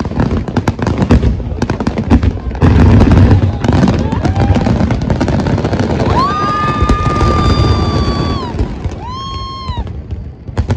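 Dense finale barrage of aerial firework shells: a rapid run of booms and crackling, loudest about three seconds in. About six seconds in, a high whistle-like tone holds steady for over two seconds and dips at its end, followed by a shorter one.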